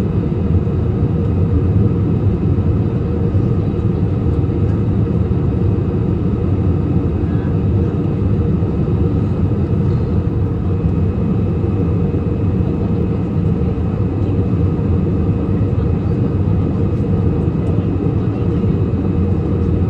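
Steady drone of a passenger airliner's cabin in flight: engine and airflow noise, heaviest in the low end, with a few faint steady tones above it and no change throughout.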